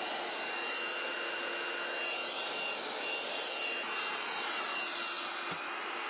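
Cuckoo robot vacuum running over the floor: a steady rush of suction air with a thin, constant high whine from its fan.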